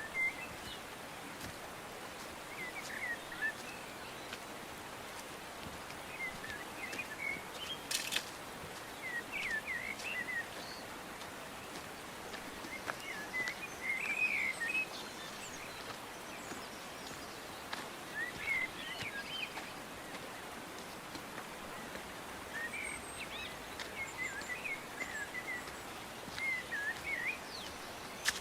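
Small birds chirping in short, quick phrases every second or two over a steady outdoor hiss, with one brief sharp click about eight seconds in.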